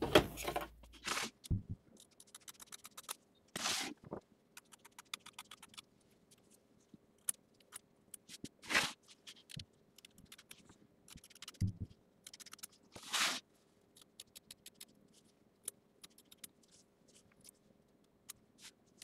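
Scissors trimming the excess off a tack-down fabric appliqué piece: runs of small quick snips broken by a few longer cutting scrapes.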